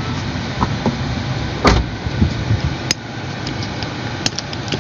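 Steady car-cabin noise from the car's engine and road, with a thump a little under two seconds in and a couple of short sharp clicks later.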